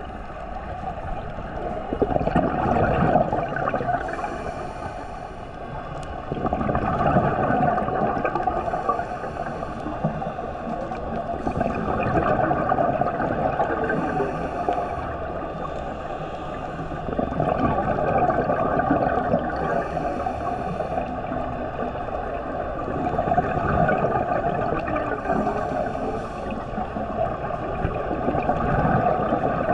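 Scuba diver breathing underwater through a regulator: a hissing inhale and then a gurgling rush of exhaled bubbles, repeating about every five to six seconds.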